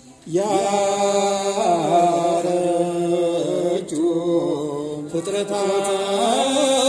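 Male voices singing an Ethiopian Orthodox mezmur (hymn) into handheld microphones, in long held notes with slow ornamented turns, starting a phrase just after the opening and taking short breaks about four and five seconds in.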